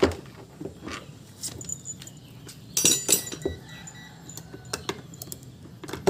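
Scattered metallic clicks and knocks from parts and fittings handled on a washing machine's motor and gearbox assembly, with a short burst of ringing, jingling clinks about three seconds in.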